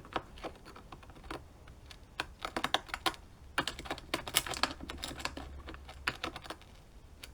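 Needle file picking and scraping at dirt packed into a screw's slot: light, quick metal clicks and scratches, a few at first, then dense runs from about two seconds in, with short pauses.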